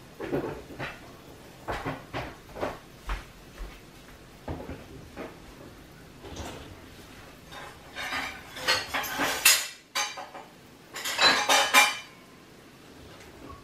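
Dishes and metal cutlery clinking and clattering, with scattered single knocks and two busier runs of clatter, about eight seconds in and again near the end.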